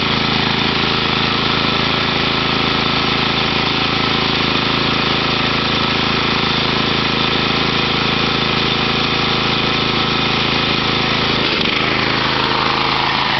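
Lawn mower engine running steadily; near the end its note drops and wavers.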